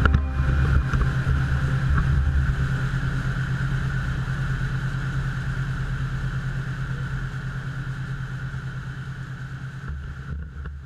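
Boat engine running steadily under way, with an even low pulse, over a rush of water from the wake. The sound slowly fades out.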